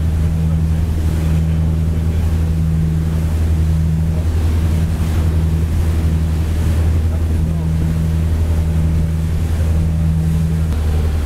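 Motorboat engine running at speed, a steady low drone, with the rush of the wake and wind buffeting the microphone.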